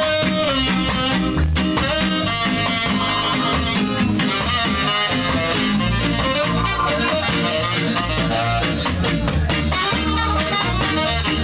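Ska band playing live: electric guitar, bass and drum kit keep a steady beat under a saxophone.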